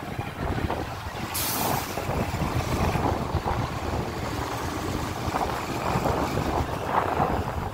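Bus station ambience: a steady low rumble of diesel bus engines, and about a second and a half in a bus's air brakes let out a sharp hiss that fades over a second or so.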